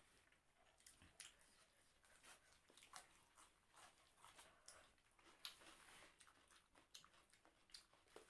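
Faint chewing with wet mouth smacks and scattered sharp clicks, from people eating rice and egg curry.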